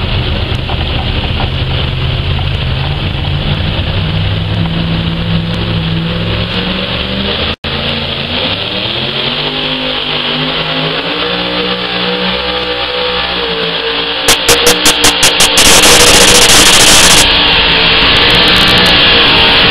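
High-powered pulling vehicle's engine running hard under load on a pull, its pitch rising and falling. About two-thirds of the way through it gets much louder and overloads the recording as the vehicle comes down the track towards the microphone. There is a brief break in the sound about a third of the way in.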